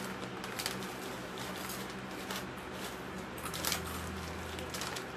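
Snack bags of Xtra Hot Cheetos crinkling in short rustles as hands reach into them, a few times, over a steady low hum.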